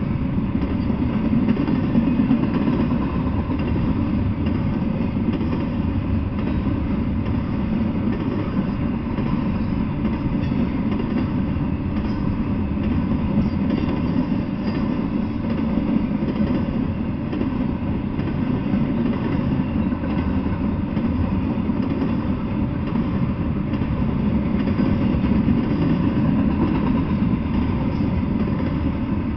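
Double-stack intermodal container freight train rolling past: a steady low rumble of steel wheels on the rails.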